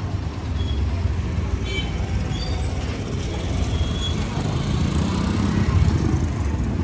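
Street traffic: small motorcycle engines running close by, a low steady rumble that grows a little louder toward the end as another motorcycle passes. A few short high chirps sound in the first half.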